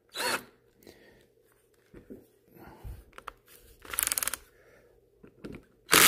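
DeWalt cordless drill with a 5/16 nut driver running briefly on a hose clamp about four seconds in, a short buzz of rapid clicks as the rubber coupler's clamp is tightened onto the discharge hose. Light handling clicks and a soft thump come before it.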